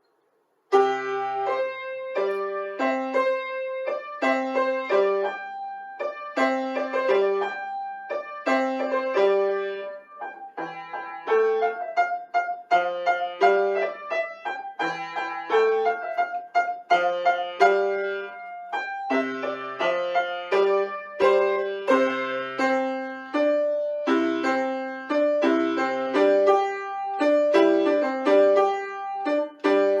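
Piano playing a beginner-level hornpipe, starting just under a second in: a steady-beat melody over low bass notes, played straight through without stopping.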